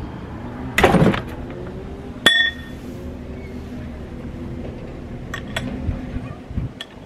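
Steel floor jack being handled while the car is let down onto a jack stand: a short clatter about a second in, then a sharp metallic clink that rings briefly, and a few faint clicks later, over a steady low hum.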